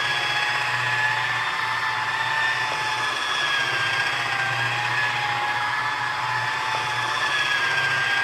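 Chicago Electric variable-speed electric buffer running at its lowest speed, a damp foam buffing bonnet polishing sanded latex paint: a steady motor whine whose pitch wavers slightly as the pad is worked, over a low hum.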